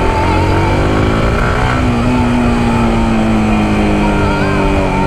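Yamaha R15M's 155 cc single-cylinder engine pulling as the motorcycle accelerates, its note rising over the first couple of seconds and then holding steady.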